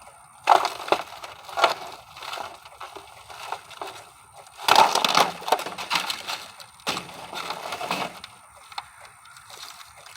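Rigid plastic greenhouse window panels being handled and shuffled, clattering and crackling in three bursts; the loudest comes about halfway through.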